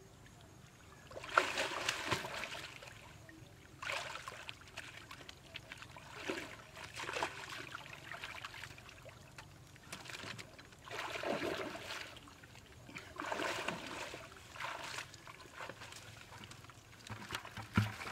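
Pond water splashing and sloshing in repeated bursts a few seconds apart as a person wades and lifts a plastic-bottle fish trap out of the water.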